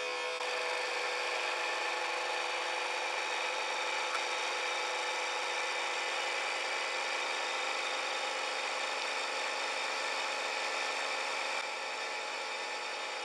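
Hydraulic press's pump running steadily: a continuous mechanical hum with several steady tones, dropping slightly in level near the end.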